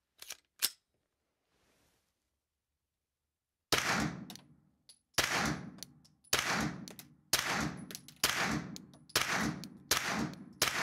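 Suppressed Stoeger STR-9 S Combat 9mm pistol fired about eight times at a steady pace of roughly one shot a second, each shot ringing briefly in a small indoor range. The pistol cycles through the string with no failures to feed, fire or eject on target-grade ammunition. Two light clicks of gun handling come shortly before the first shot.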